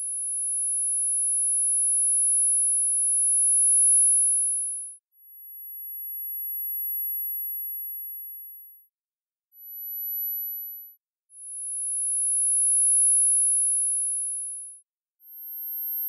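Synthesized high-pitched pure sine tones between 10 and 13 kHz, for tinnitus neuromodulation, played one after another. Each swells in and fades out over one to five seconds, with a brief gap before the next tone starts at a different pitch, about five tones in all.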